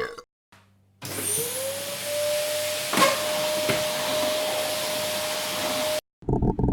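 An electric motor with a loud rush of air, like a vacuum cleaner, switches on. Its whine rises quickly and then holds steady. A sharp knock comes about three seconds in and a fainter one soon after, and it cuts off suddenly near the end.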